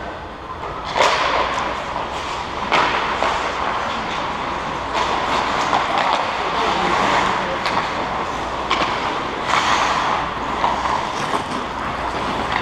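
Ice hockey skate blades scraping and carving on the ice close by, with several sharp clacks from sticks and puck, the loudest about a second in.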